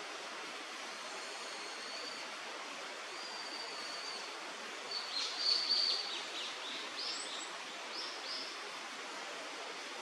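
Steady rushing of a river, with a bird's thin high whistles about two and three seconds in and a louder run of chirps around halfway, followed by a few short notes.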